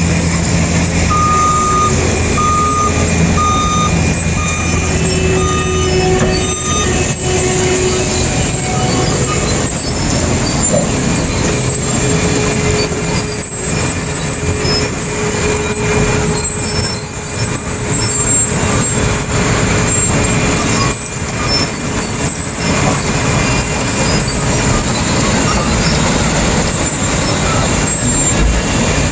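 Heavy road-work truck or machinery running, with a reversing alarm beeping about once every 0.8 seconds for the first several seconds, then steady, loud machine noise with a thin high whine.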